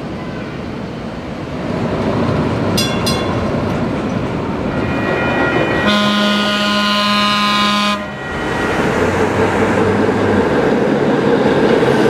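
A PCC streetcar's horn sounds one steady blast of about two seconds over a continuous low rumble of the car and street. Two quick high dings come a few seconds before the horn, and the rumble grows louder after it.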